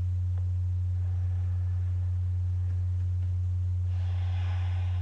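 Steady low electrical hum at one even pitch, with a faint soft noise about four seconds in.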